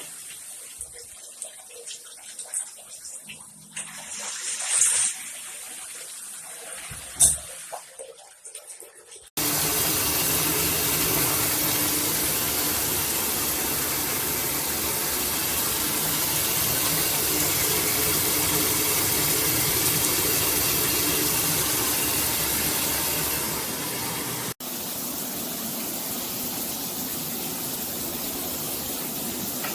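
A few light clicks and knocks of handling, then about nine seconds in a shower head suddenly starts spraying water in a steady, loud rush. Near the end, after a brief break, the spray runs on slightly softer.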